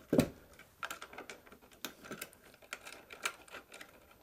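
A dull thump, then a run of small irregular clicks and taps as metal rack hardware is handled and rack screws are lined up and started into the rack rail.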